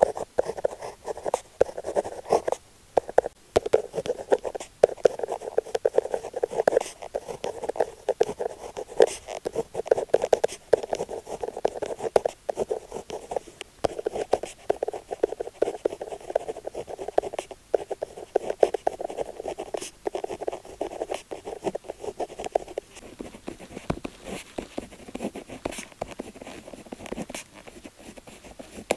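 Push-button rollerball pen writing on paper: steady scratchy strokes of the pen tip, with brief pauses between them. The strokes become softer about 23 seconds in.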